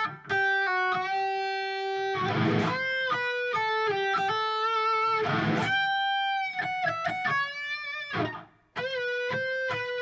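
Eight-string electric guitar playing a melodic single-note line from an E minor scale, notes held with vibrato, with a short break about eight seconds in.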